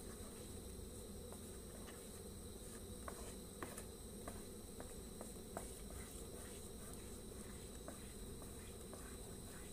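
Thick sago and pandan mixture simmering in a nonstick pan as it is stirred with a wooden spatula: a faint low rumble with scattered small pops and scrapes. A steady high-pitched whine runs underneath.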